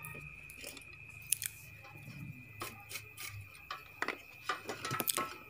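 Scattered light clicks and taps from handling a solder spool and a circuit board with large capacitors, over a faint steady high-pitched whine.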